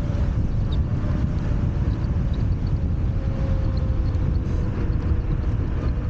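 Wind rushing and buffeting on the camera microphone while riding an electric scooter at speed. Under it is a faint steady whine that slowly drops a little in pitch.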